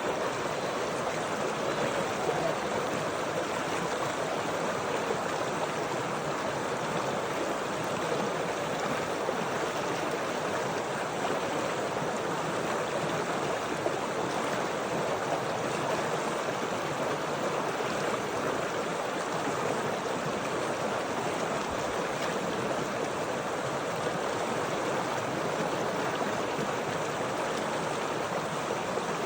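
Flowing stream water making a steady, even rush.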